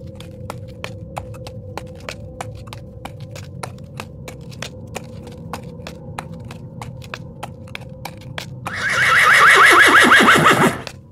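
Spooky sound-effect track: steady ticking, about three ticks a second, over a low drone. Near the end a loud horse whinny comes in, falling in pitch and lasting about two seconds.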